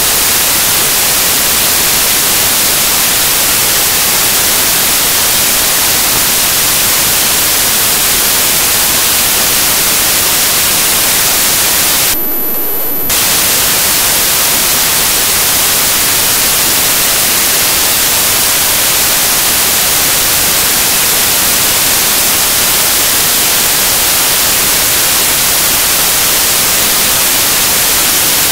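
Loud, steady static hiss, strongest in the high end, from a corrupted recording's broken audio track. About twelve seconds in it drops for under a second and a thin, high steady whine shows through.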